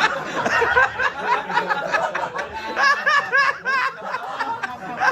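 A comedy audience laughing and whooping at a punchline, many overlapping voices with some shrieks of laughter.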